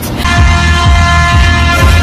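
Short edited music sting: a single held, horn-like blast over heavy bass thumps, lasting about two seconds.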